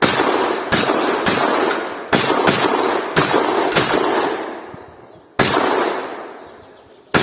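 Shotgun fired in quick succession: seven shots within about four seconds, then two more spaced about a second and a half apart near the end. Each shot leaves a long, fading echo.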